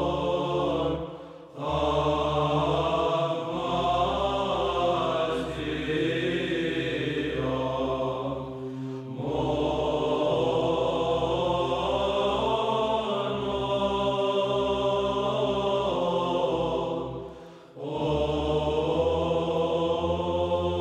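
Orthodox church chant as background music: voices sing long, sustained phrases over a held low drone note. The singing breaks off briefly about a second and a half in and again near the end.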